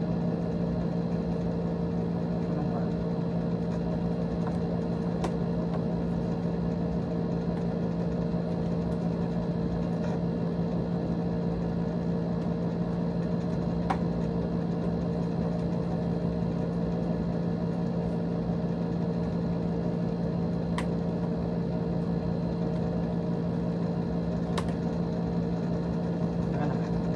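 Steady machine hum, unchanging in pitch, with a few faint clicks and taps from helmets being handled.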